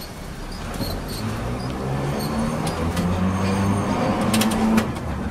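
Old 570-type streetcar pulling away and gathering speed: its motors and gearing whine, stepping up in pitch as it accelerates, with a quick clatter of clicks near the end.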